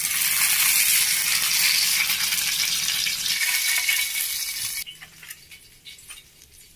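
Hot oil sizzling in a frying pan, a dense hiss that drops to faint scattered crackles and pops about five seconds in.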